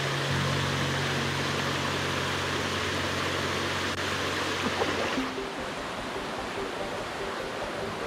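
Rushing water of a small cascade in a mountain stream, a steady noise, with soft background music underneath. About five seconds in the water turns quieter and less hissy as it gives way to a gentler stream flow.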